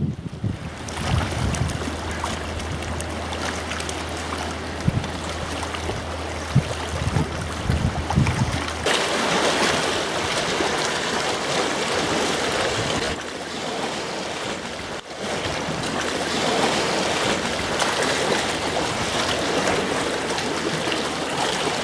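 Choppy lake water lapping and splashing in a steady wash. Wind buffets the microphone in low gusts for the first nine seconds or so. The sound then changes abruptly to a brighter, steadier wash.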